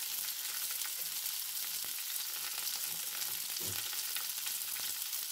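Hot oil sizzling steadily in a pan, food frying, with a fine crackle over an even hiss.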